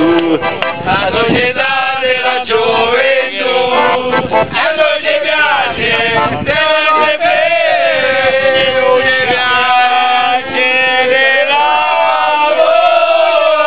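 A group of men singing together in chorus, with an accordion playing along.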